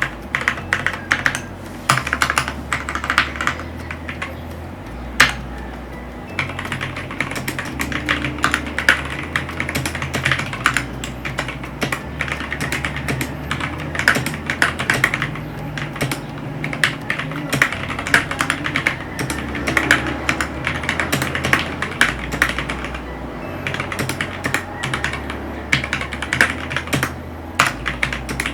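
Typing on a Fantech MaxCore MK852 mechanical keyboard fitted with lubed Gateron Milky Yellow linear switches: a continuous run of keystroke clacks with a few short pauses. Background music with a low bass line plays underneath.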